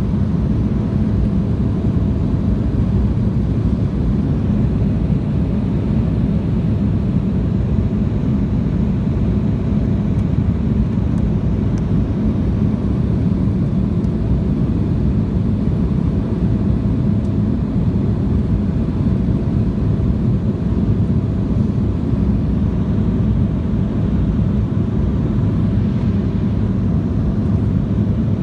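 Steady engine and airflow noise heard inside the cabin of an Embraer 175 airliner, its two General Electric CF34 turbofans running: an even low rumble with a faint steady tone above it.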